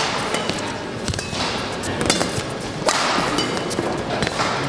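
Badminton rally: a feather shuttlecock struck back and forth with rackets, several sharp hits about a second apart, with short squeaks of court shoes on the mat between them.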